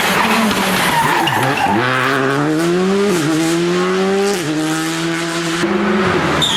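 Rally car accelerating hard: the engine's pitch climbs, drops at an upshift about three seconds in, climbs again, shifts once more a second or so later, then holds briefly before the engine note breaks off near the end.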